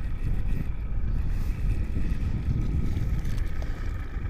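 Wind buffeting the microphone as a low rumble, over the steady hum of a fishing boat's motor.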